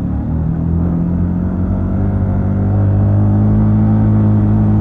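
Motorcycle engine running steadily, its note rising slightly about two seconds in.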